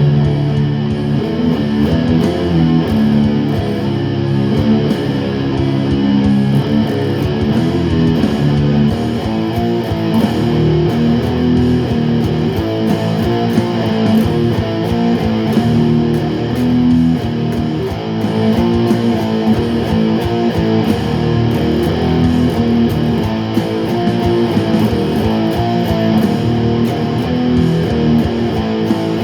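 Guitar music: plucked and strummed guitar notes playing continuously.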